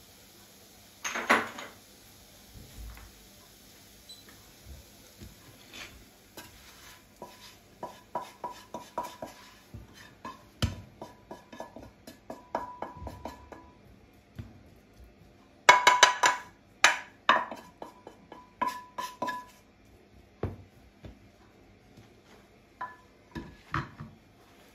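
Metal cutlery clinking and tapping against dishes in a series of short sharp clicks with a light ring. There is a single knock about a second in, a run of quick taps around eight seconds, and the loudest cluster of clinks a little past the middle.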